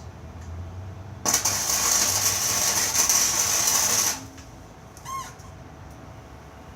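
Electric arc welder tacking the steel frame of a cart: a steady, loud crackling hiss that starts about a second in, runs for about three seconds and cuts off sharply when the arc is broken.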